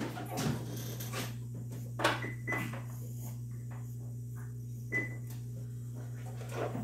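Treadmill console beeping as its buttons are pressed: short high beeps about two seconds in and again near five seconds, with a few knocks over a steady low hum.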